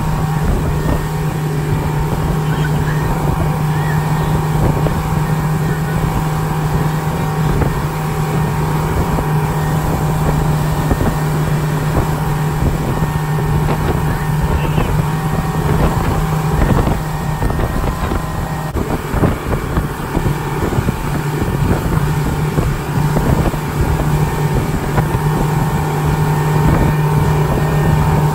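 A 75 hp Honda four-stroke outboard running steadily at towing speed, with the wake rushing behind the boat and wind buffeting the microphone.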